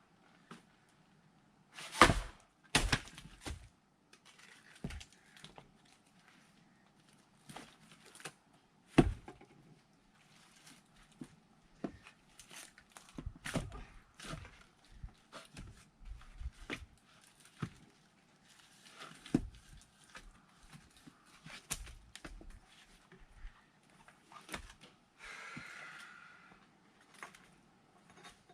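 Firewood being split by hand with an axe: a few sharp, loud blows, two of them a couple of seconds in and another about nine seconds in, among many lighter wooden knocks and clunks.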